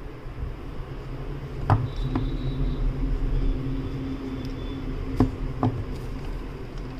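Cardboard earphone box being handled and pried at, with a few sharp taps and knocks, about four in all, the loudest nearly two seconds in and again past five seconds. Under it a steady low rumble, with a faint hum in the middle.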